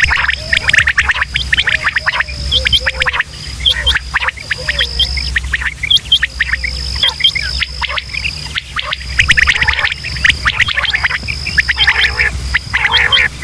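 Quail calling in bouts of rapid chattering notes, with sparser short high notes in between. A steady high insect-like trill and a low hum run beneath.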